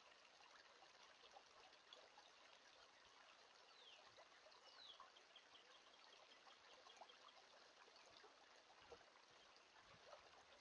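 Faint creek water trickling over a shallow stony riffle, a steady hiss with small splashing ticks. About four seconds in, two brief high falling chirps, with a quick run of faint ticks after them.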